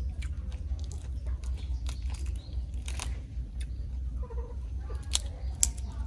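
Shell of a boiled tiger prawn being peeled off by hand: scattered small crackles and snaps as the shell breaks and pulls away from the meat. A steady low hum runs underneath.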